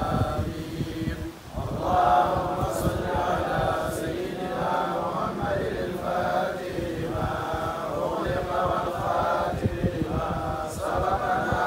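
A group of men chanting together in unison, a collective Islamic prayer recitation. The voices drop briefly about a second in, then carry on.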